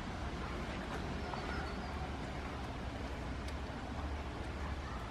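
A steady low rumble, with a few faint crunching clicks from goats eating feed out of a bucket and faint bird chirps about a second and a half in.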